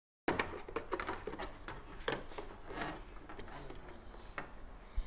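Hands fitting a metal control-box cover into the plastic casing of an air-conditioner indoor unit: a string of small clicks, taps and scrapes of metal against plastic, with a sharper knock near the end.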